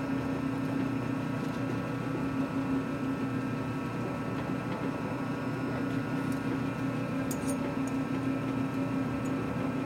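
Machine tool running with a steady hum, its pitch unchanging, while metal is being machined; a few faint light ticks come about seven seconds in.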